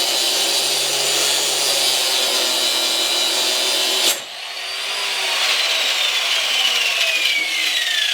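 4.5-inch angle grinder with a grinding disc grinding through steel; the grinding cuts off suddenly about four seconds in, then goes on with a high whine that falls steadily in pitch.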